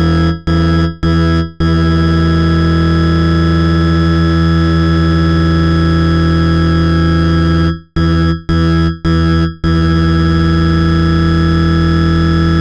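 Synthesized tones built on 165 Hz and its octaves, played loudly as a water-ejection sound to shake water out of a phone speaker. The drone cuts out briefly four times, about half a second apart, near the start and again about eight seconds in.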